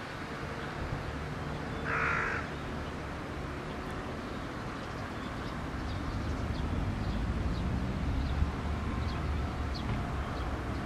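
A crow caws once, a single harsh call about two seconds in, over steady outdoor background noise. A low rumble grows louder from about halfway through.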